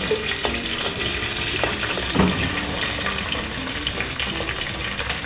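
Raw pork-fat cubes tipped into hot oil in an aluminium pressure cooker, the oil sizzling steadily as they go in, with a few sharp knocks as pieces drop against the pot.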